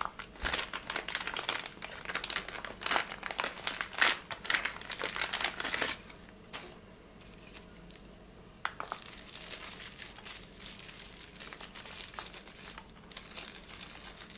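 Thin plastic wrapping crinkling as it is handled and pulled off a pair of sunglasses. Dense crackling for about the first six seconds, a lull of about two seconds, then lighter crinkling.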